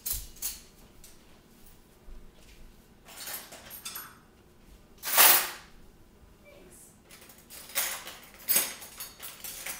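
Dishes and cutlery clattering now and then as they are handled, with the loudest clatter about five seconds in and a quick run of clinks near the end.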